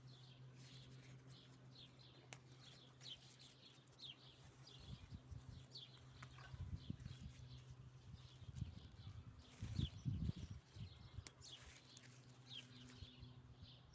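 Small birds chirping repeatedly over a steady low hum, with louder low rumbling bursts between about six and eleven seconds in.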